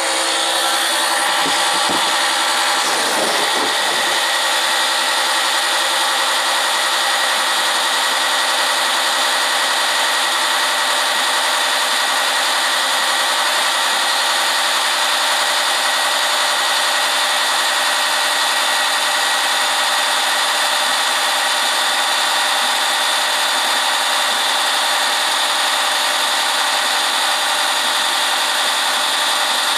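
A small oil-extraction pump running steadily as a motor whine, drawing used oil out of the John Deere 140's engine. A few light knocks come in the first few seconds.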